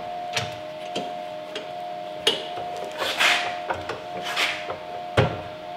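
Metal clicks, knocks and short scraping swishes as the chop saw's vise is worked and the saw is swung on its pivot to a new angle, with a heavier thump a little after five seconds. A steady hum runs underneath; the saw is not running.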